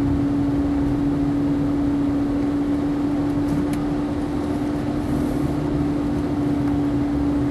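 Inside a car driving slowly in town traffic: a steady engine and road hum with one constant low tone, and a faint click about three and a half seconds in.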